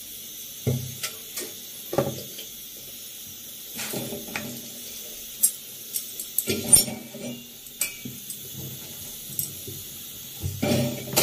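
Cookware handling at a gas stove: metal tongs and an iron tawa clinking and knocking in scattered strikes every second or two, with a clatter near the end as the tawa is lifted off and the chapati is put over the flame with tongs. A steady faint hiss runs underneath, from the lit gas burners.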